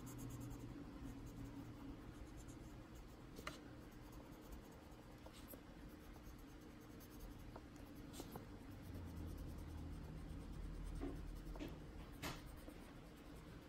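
Faint scratching of a Prismacolor colored pencil shading on coloring-book paper, with a few light ticks, over a low steady hum.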